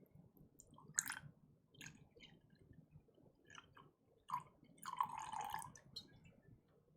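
Gin bottle and glass being handled: a few sharp clicks and knocks, then a short pour of liquid into a glass lasting about a second, about five seconds in.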